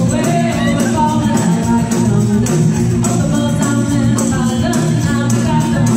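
Live band music: a singing voice over electric guitar, keyboard and drums, with a steady beat of about two strikes a second.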